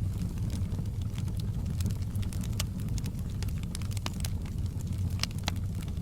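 Wood fire burning in a fireplace: a steady low rumble of the flames with frequent irregular sharp crackles and pops.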